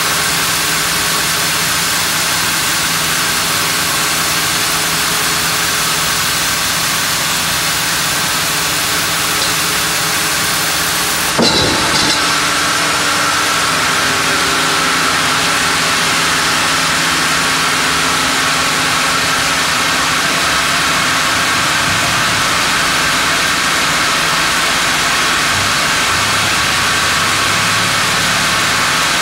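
Large band sawmill running steadily while its carriage feeds a monkeypod (rain tree) log through the band blade, a constant mechanical hiss and hum. About eleven seconds in there is a sudden sharp clunk, after which the highest hiss falls away.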